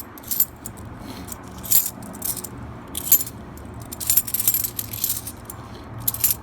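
Half dollar coins clinking together as they are handled and slid apart by hand: a scatter of sharp metallic clicks, busiest about four to five seconds in.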